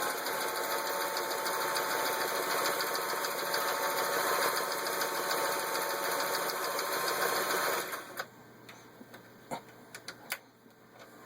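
Vintage 1961 Singer 503A sewing machine running at a steady fast speed, sewing a zigzag stitch from its zigzag cam, with a steady whine and fast needle chatter. It stops about eight seconds in, followed by a few light clicks.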